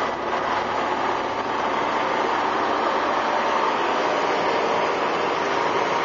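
Articulated dump truck's diesel engine and drivetrain running steadily, heard from inside the cab.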